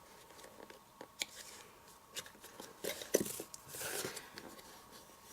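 Thick cardstock being folded and pressed down by hand: faint papery rustles with a few light clicks and taps, the loudest cluster about three seconds in.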